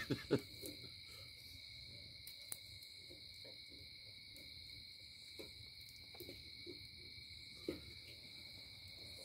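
A steady night chorus of crickets, a shrill trill held at two high pitches without a break. A couple of knocks come right at the start, and the wood fire gives a few faint pops.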